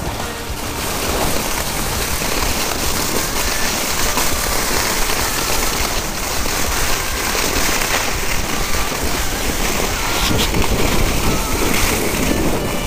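Skis hissing and scraping over packed snow during a downhill run, mixed with wind rushing over the microphone, with a few short knocks.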